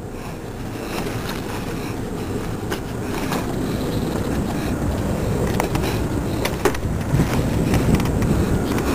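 Camera handling noise: a rumbling rustle, growing louder, with scattered knocks and clicks as the handheld camera is carried and rubs against clothing.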